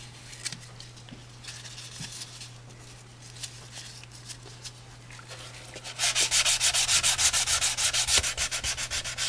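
Hand sanding of Bondo body filler on a plastic motorcycle side cover with a small sanding block. There is light, intermittent rubbing at first, then from about six seconds in fast back-and-forth sanding strokes, about five a second.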